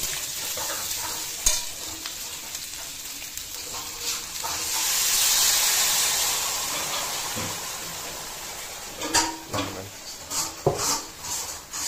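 Food frying and sizzling in oil in a wok while a metal spatula stirs it. About four seconds in, liquid is poured into the hot pan and the sizzle swells into a loud hiss for a few seconds before settling. Near the end the spatula knocks and scrapes against the pan.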